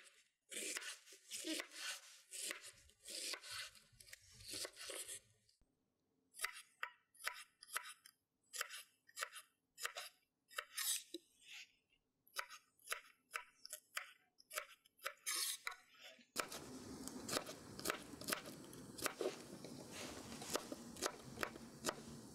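Food being prepared by hand on a wooden board: first a run of even swishing strokes, then irregular sharp crunching taps. About two-thirds of the way through a steady hiss comes in beneath continuing clicks.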